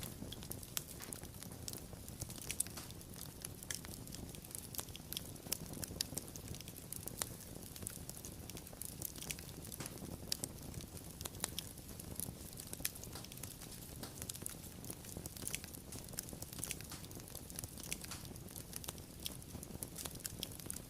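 Wood fire crackling: frequent irregular sharp pops and snaps over a steady low rumble of burning.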